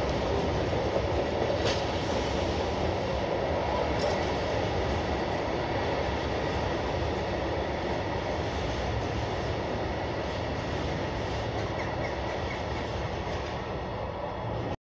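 A train running close by, out of view: a steady rumble that eases slightly toward the end, with a couple of sharp clicks about two and four seconds in.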